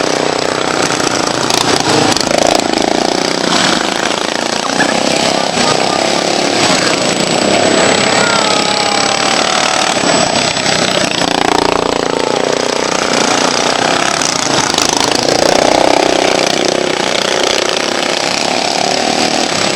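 Racing lawn mower engines running loud and continuously, their pitch rising and falling as they rev.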